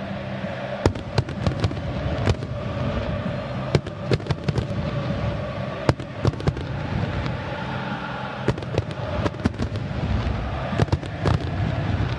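Firecrackers going off in many sharp, irregular bangs, several a second at times, over the steady din of a packed football stadium crowd.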